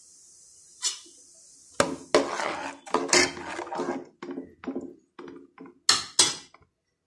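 A metal ladle stirs a thin coconut curry in a stainless steel pot, scraping and clattering against the pot's sides with a ringing metallic tone. There are two sharp clanks near the end. A steady high hiss runs for the first couple of seconds, then stops.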